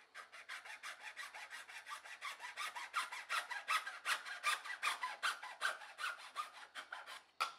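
Hacksaw cutting through a plastic cable-routing tube: quick, even back-and-forth strokes, about five a second.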